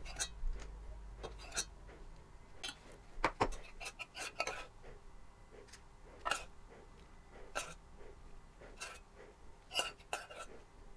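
Metal spoon clinking and scraping against a stainless steel saucepan as melted chocolate is spooned and poured into paper cases: light, irregular clinks and taps, roughly one a second.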